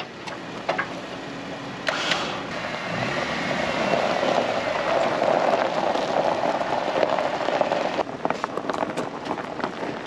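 An engine running: a few clicks, then a steady rushing run that builds about two seconds in and eases off about eight seconds in.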